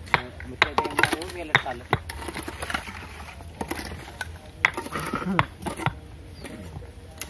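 A hoe chopping and scraping into soil and broken brick, irregular sharp knocks, with several men talking over the work.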